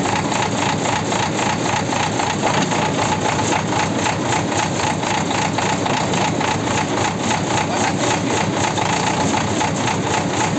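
JCB backhoe loader's diesel engine running steadily, with an even, regular beat.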